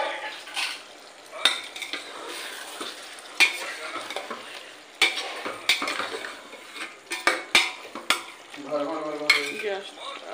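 Chicken masala sizzling in a stainless steel pot while a spatula stirs it, knocking and scraping against the pot's sides about eight times.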